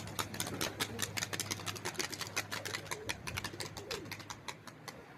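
Kazakh fighting pigeons clapping their wings in flight: a rapid, irregular run of sharp wing claps, several a second, the clapping that these breeds make as they tumble in the air.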